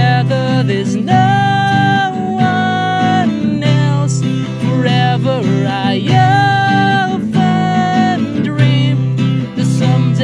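A man singing a song in English to his own strummed acoustic guitar.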